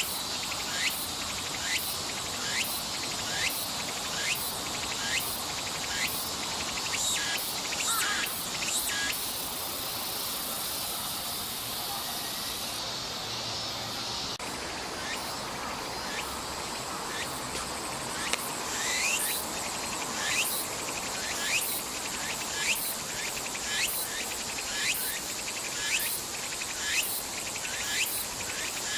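Tsukutsukuboshi cicada (Meimuna opalifera) singing its rhythmic 'tsuku-tsuku-boshi' song: short shrill phrases repeating about once a second. About ten seconds in they give way to a steady buzz for a few seconds, then the phrases start again, a little faster.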